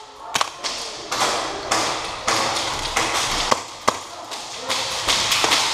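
Tokyo Marui Desert Warrior 4.3 gas blowback airsoft pistol firing: a few sharp single cracks spread out, two close together past the middle, over the rustle of movement.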